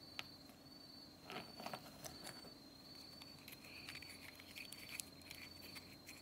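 Faint close handling sounds: a few light clicks and short rustles as fingers work a small metal screw eye and wipe it with a tissue. Behind them, a steady high cricket-like trill with short regular breaks.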